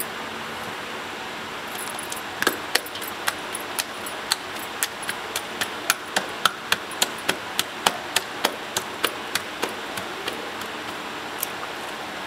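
Hands slapping roti dough between the palms to flatten it for the tandoor: a run of quick, sharp pats, about three a second, starting about two seconds in and thinning out near ten seconds.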